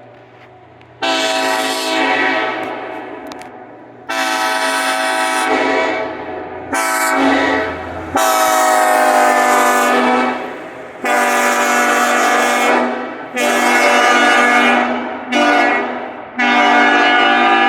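Locomotive air horn sounded in a series of about eight blasts, mostly short with one longer held blast in the middle, each starting sharply; the last is still sounding at the end.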